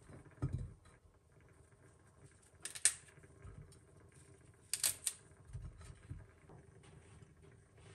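Broccoli florets being set down by hand into a glass baking dish: faint soft bumps and a few sharp clicks where the florets tap the glass, about three seconds in and again about two seconds later.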